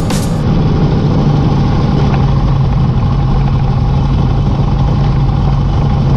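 Harley-Davidson motorcycle engine running steadily at a low, even drone with no revving. Background music cuts off about half a second in.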